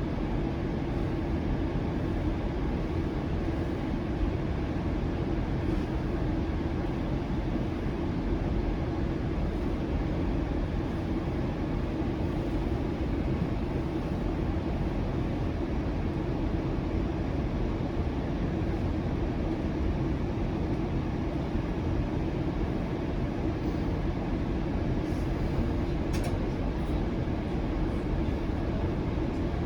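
Steady running noise of a TTC Flexity Outlook low-floor streetcar in motion, heard from on board: a continuous rumble of wheels on rail with an even hum, holding at one level throughout.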